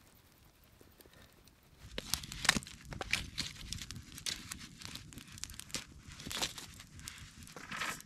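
Irregular crinkling and scraping handling noises, starting about two seconds in and going on in uneven strokes.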